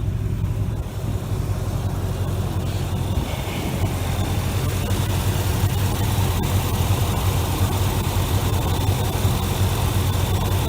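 Chevrolet 454 big-block V8 idling steadily. A faint, steady high whine comes in about four seconds in.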